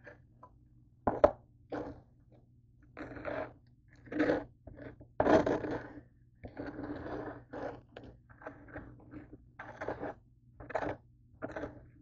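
Mayonnaise being spread on grilled honey wheat toast: a utensil scraping across the crisp bread in a series of short, irregular rasping strokes. A sharp knock about a second in is the loudest sound.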